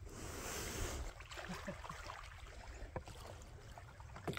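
Plastic kayak being pushed off a sandy beach into shallow water: wind rumbling on the microphone in the first second, then light sloshing of water with a few short knocks from the hull.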